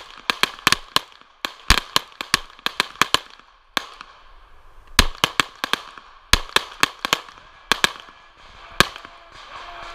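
Pistol shots from two shooters firing side by side, in quick overlapping strings, with a short lull partway through, stopping about nine seconds in.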